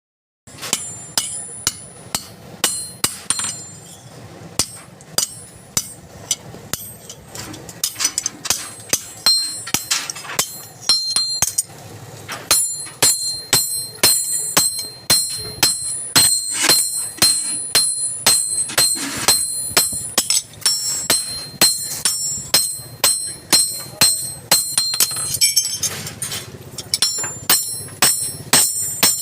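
Hammer blows on the steel of an axe head, about two a second, each ringing with high metallic tones.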